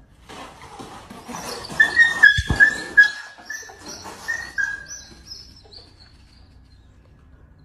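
A dog whimpering in a run of short, high whines, about eight in quick succession, with a dull thump among them.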